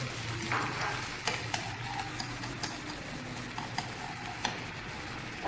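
Wooden chopsticks stirring a thin tomato sauce in a nonstick frying pan, clicking and scraping against the pan now and then over a steady sizzle of the sauce cooking.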